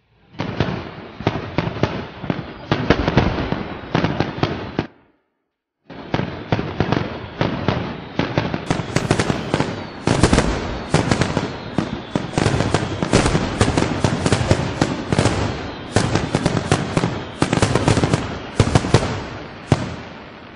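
Recorded fireworks sound: dense crackling with many sharp bangs, stopping for about a second roughly five seconds in and then going on.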